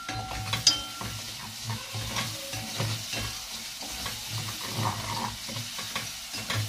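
Onions frying in a pot, sizzling steadily while a wooden spoon stirs them, scraping the pot in repeated strokes.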